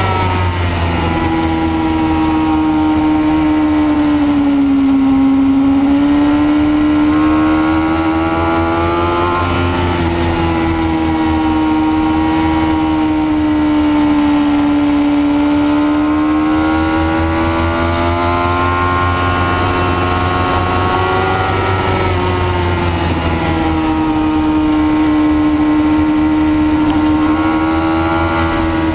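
Racing motorcycle engine heard from onboard, held at high revs with its pitch sweeping down and up through the corners. The pitch falls sharply near the start and again about three quarters through, then climbs. Steady wind noise runs underneath.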